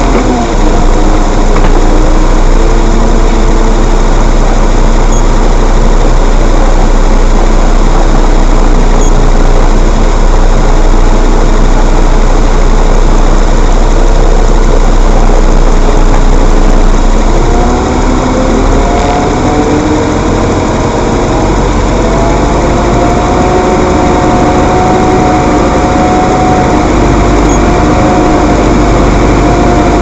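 Heavy diesel engine of construction machinery running loudly and steadily close by. About eighteen seconds in it dips briefly, then revs up and holds at a higher pitch.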